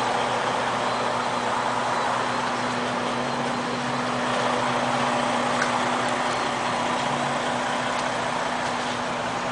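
2013 John Deere 9560RT track tractor's 560-horsepower diesel engine idling steadily, a constant low hum under an even hiss.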